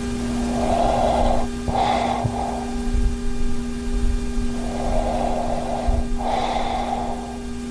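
A man snoring in his sleep, snoring caused by moderate sleep apnea. There are two breaths about five seconds apart, each a noisy draw, a brief catch, then a second noisy part, over a steady hum.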